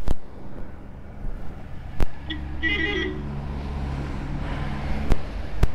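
Royal Enfield Himalayan's single-cylinder engine running steadily at low speed as a low drone. It is broken by several sharp clicks, and a brief high-pitched tone sounds about two and a half seconds in.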